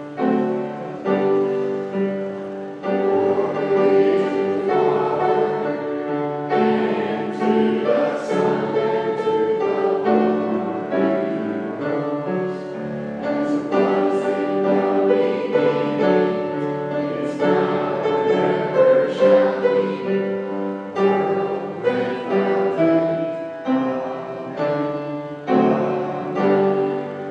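A group of voices singing a hymn together, accompanied by piano.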